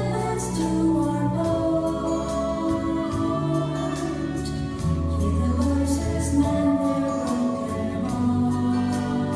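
Church worship band playing a slow gospel song, with sung voices holding long notes over bass and regular drum strokes.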